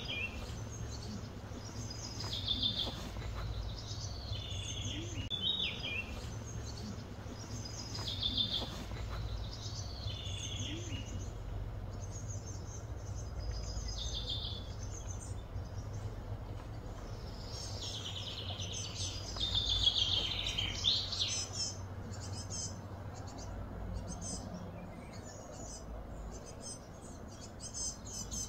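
Small birds chirping and singing in repeated short phrases, busiest about two-thirds of the way through, over a steady low background hum.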